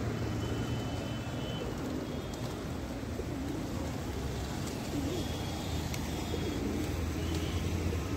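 A flock of feral rock pigeons cooing on and off over a steady low rumble of road traffic.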